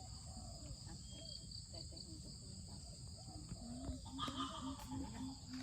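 Steady high-pitched drone of crickets and other insects in rural vegetation. About two-thirds of the way in, a low call repeats about five times in an even rhythm, with faint voices in the background.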